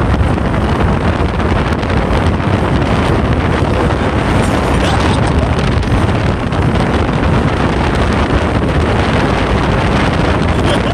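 Steady, loud wind noise buffeting the microphone, with the road and engine noise of a vehicle moving at speed.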